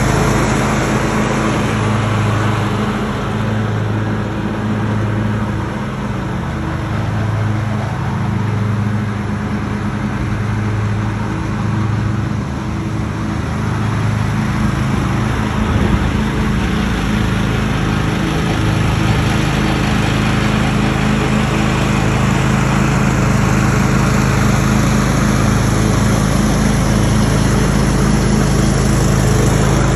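John Deere X320 riding lawn tractor's engine running steadily while mowing, a constant low drone.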